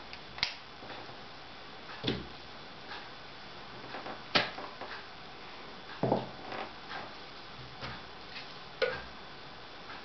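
Plastic juicer attachment parts being handled and set down: several scattered clicks and knocks of plastic against plastic and the table, a second or two apart, the loudest a little past the middle.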